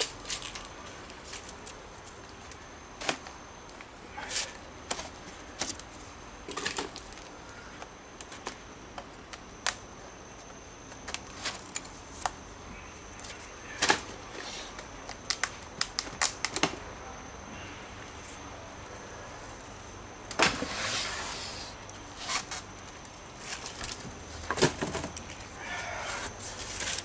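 Scattered clicks, knocks and taps as the mold panels and clamps are worked loose from freshly cast aircrete blocks, with a longer scraping, rustling stretch about twenty seconds in.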